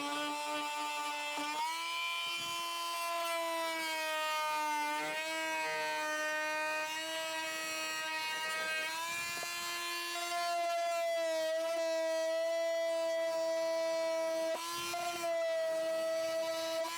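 VEVOR oscillating multi-tool running with a scraper blade against plastic: a steady high buzz whose pitch shifts slightly as the blade is pressed, with a brief dip about fifteen seconds in.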